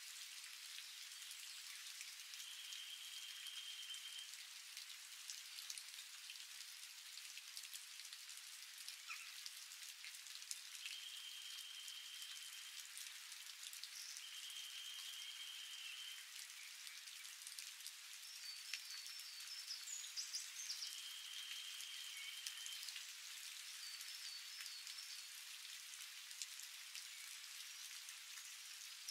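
Steady rain pattering on leaves, heard as an even hiss. A high, steady tone of about a second and a half sounds four times over it, and quick high chirps come in the second half.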